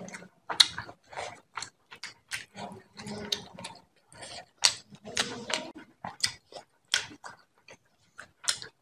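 Close-miked chewing and wet lip-smacking of a mouthful of rice and fish curry, in quick irregular clicks, with a few short grunt-like sounds from the eater's throat.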